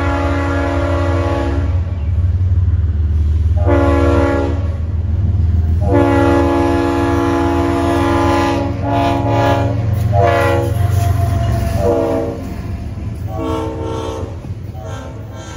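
Freight diesel locomotive's multi-chime air horn sounding a series of blasts for a grade crossing, long blasts first and then several short ones near the end, over the low rumble of the locomotive approaching and passing. The rumble eases late on as double-stack container cars roll by.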